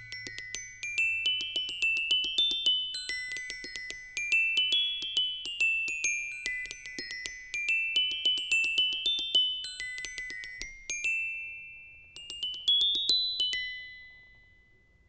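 Film score of a high, tinkling bell-like melody: quick ringing notes in several rising runs, the last phrase fading out near the end.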